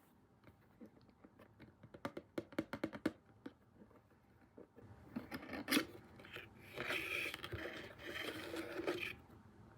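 A cardboard Funko Pop box being opened and its plastic insert pulled out: a quick run of sharp clicks about two seconds in, then a sharp crack and about four seconds of scraping and rubbing of cardboard and plastic.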